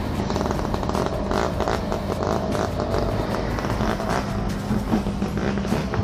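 Diesel engine of a Volvo crawler excavator running steadily, with scattered clanks and knocks.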